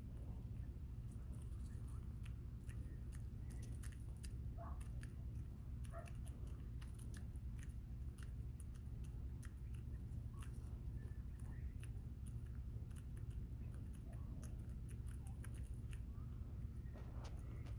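Bobwhite quail pecking at mealworms: an irregular run of sharp clicks and snaps, with a few short soft quail calls and a steady low hum underneath.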